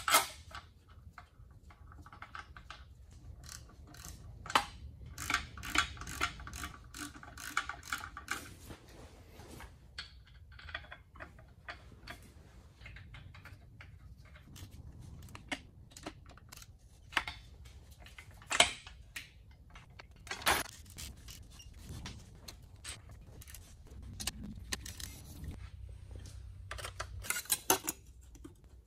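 Socket ratchet wrench clicking in runs as the gearbox bell-housing bolts are wound in, with occasional louder metal clinks and knocks.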